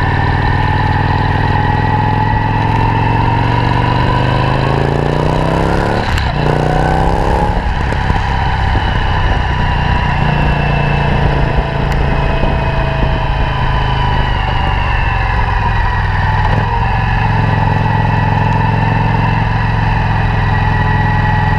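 Victory Octane's V-twin engine through an aftermarket exhaust, heard on the move. It accelerates from about three seconds in, rising in pitch, with a short break near six seconds like a gear change, then rises again and settles into steady cruising.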